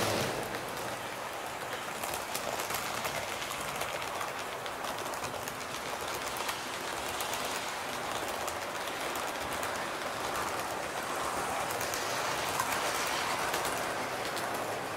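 Model train running along the layout's track: a steady rushing noise dotted with many small clicks.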